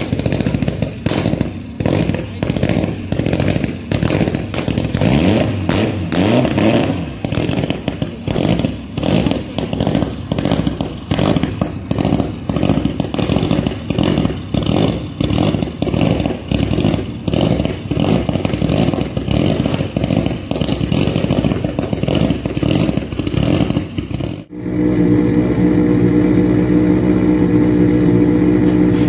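Rally car engine running rough and choppy, with rapid uneven pops and short revs. About 25 seconds in it switches abruptly to a steady, even engine note at a constant pitch.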